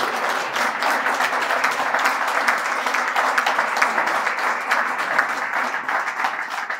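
Audience applauding: dense, steady clapping that thins out at the end.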